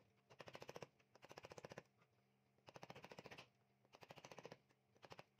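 Sharp chisel worked in repeated strokes along the edge of a large timber block. Each stroke is a quick chattering rattle of about a dozen ticks, and there are five strokes with short pauses between them.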